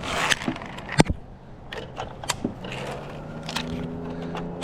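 Scattered clicks and knocks of a climber's harness gear and steps as he walks around a tree on a ropes-course platform, the sharpest knock about a second in. A low steady drone comes in about halfway through.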